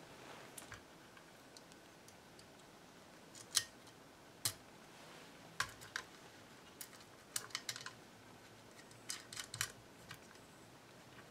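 Light, irregular clicks and taps of wire terminal lugs and small metal hardware being handled and fitted onto an antique amplifier's terminal posts, scattered singly at first and then in quick little clusters.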